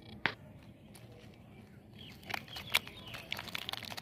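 A single sharp tick a quarter-second in, then from about two seconds in a run of light crinkling and crackling from a plastic biscuit wrapper being handled.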